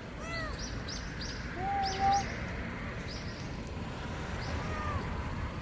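A young kitten mewing three times, with the longest and loudest cry about two seconds in. Small birds chirp in quick high notes throughout, over a steady low background rumble.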